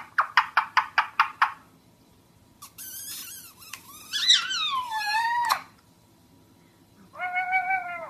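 Ring-necked parakeet calling into a cardboard tube. It opens with a quick run of about ten short, evenly spaced notes, then a stretch of squawky chatter with rising and falling whistles, and ends with a steady held call.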